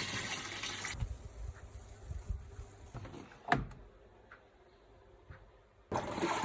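Water rushing and sloshing in a top-loading washing machine's tub during an OxiClean soak-cleaning wash, stopping about a second in. A few low knocks and one sharp click follow, then the water noise starts again near the end.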